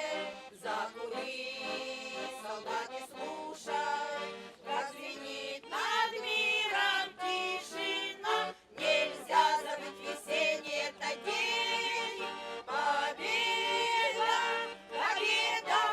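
A group of voices singing a song with instrumental accompaniment.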